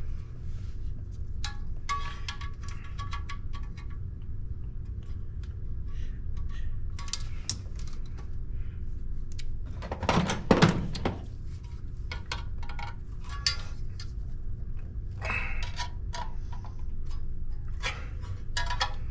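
Small hard objects, metal among them, being handled: scattered clicks, taps and short metallic clinks, with a louder clatter about ten seconds in, over a steady low hum.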